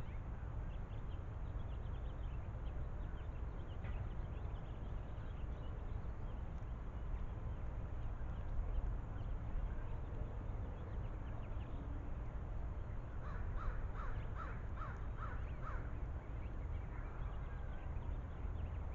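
A bird gives a run of about six calls, roughly two a second, a little past the middle, over a steady low background rumble with faint scattered chirps.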